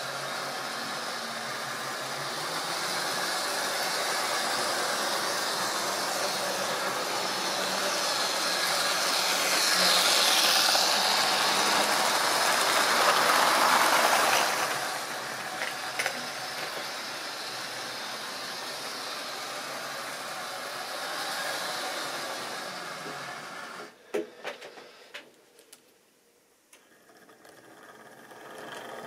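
Model railway train running on sectional track: a small motor whirring and the wheels rattling over the rail, loudest as it passes close by about ten to fourteen seconds in. About twenty-four seconds in the sound drops away with a few sharp clicks, and near the end the running sound starts up again.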